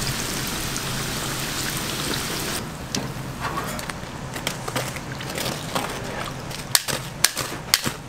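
Dough balls deep-frying in a vat of hot oil, a steady dense sizzle. After about two and a half seconds the sizzle thins and a string of sharp clicks and taps follows, from metal tongs and a wire strainer working in the fryer.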